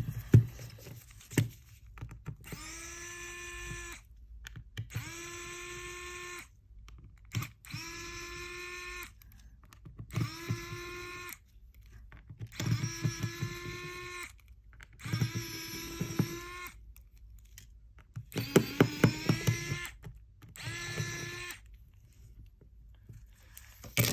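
Pen-style electric precision screwdriver (Fix Zone) running in about eight short bursts of one to two seconds each with a steady whine, backing out the small screws of a water-damaged Samsung phone's frame. Its pitch wavers and rises in one longer run near the end, and a few knocks of handling come at the start.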